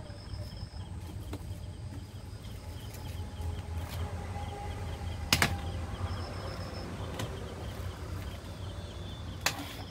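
Small rechargeable pedestal fan running with a steady low hum, then two sharp clicks, one about halfway through and one near the end, as the fan is switched off and handled.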